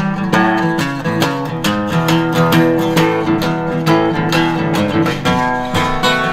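Background music: strummed acoustic guitar playing steadily with a regular beat.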